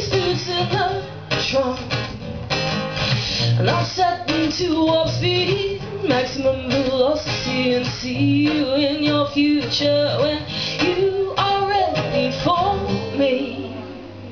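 A woman singing to her own strummed acoustic guitar, the song dying away near the end.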